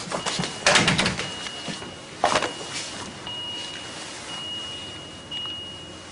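Door and handling noises in a hospital room: a quick run of clicks and knocks about a second in, then one sharp knock a little after two seconds, over a faint steady high tone.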